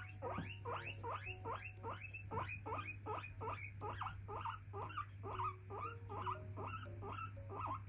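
Guinea pig wheeking: a rapid run of short, rising squeals, about three a second, a demanding call.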